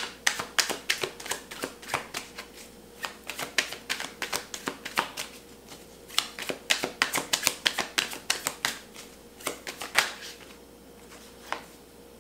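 A deck of oracle cards being shuffled by hand: quick, irregular runs of sharp card clicks and slaps with short pauses between them, thinning out near the end.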